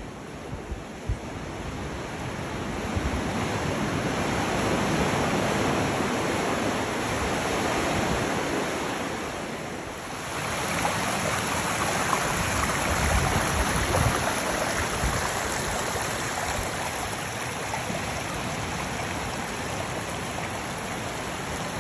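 Ocean surf washing through a rocky sea-cave channel and over the rocks of the beach, a steady rush of water that dips briefly about halfway through and then swells again.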